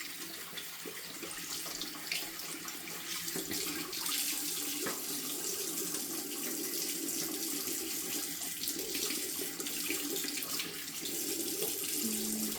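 Tap water running into a sink and splashing over a plastic washing-machine detergent drawer as it is rinsed out.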